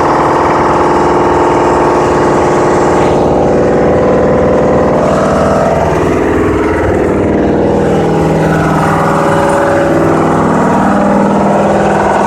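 Natural gas compressor's engine running steadily and loudly, its pitch shifting about three seconds in and again about halfway through.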